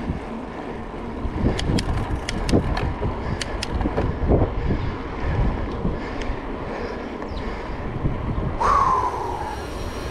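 Wind buffeting the microphone while cycling, over the steady rush of freeway traffic. A few sharp ticks come in the first few seconds, and near the end a louder hiss rises with a short falling whine.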